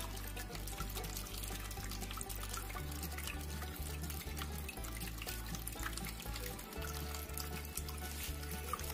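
Background music with a steady bass line, over steady running and splashing water, most likely a small cement tabletop waterfall fountain's water flowing.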